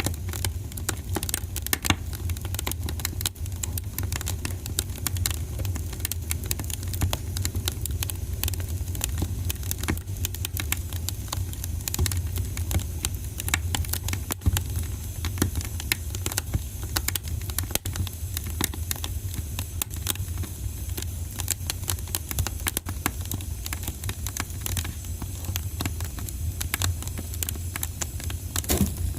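Wood fire burning in a fireplace: dense, irregular crackles and pops over a steady low rumble.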